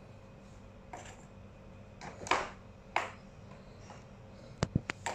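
A ball knocking around the plastic tracks of a three-tier cat track toy as a cat paws at it: a few short scuffing knocks, the loudest about two seconds in, then a quick run of sharp plastic clicks near the end.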